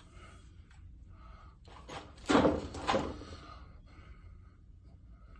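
Robot knee parts handled on a work surface: small clicks and rustles, then two sharper knocks a little over two seconds in, about half a second apart.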